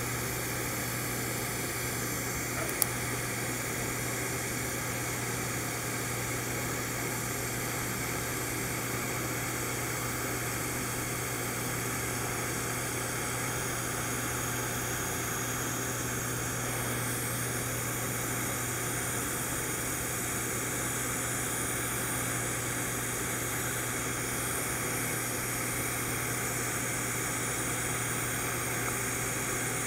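DC TIG (GTAW) welding arc at about 110 amps running a filler pass on 304L stainless pipe, ER308L filler wire fed into the puddle: a steady hiss with a low hum under it. One sharp click about three seconds in.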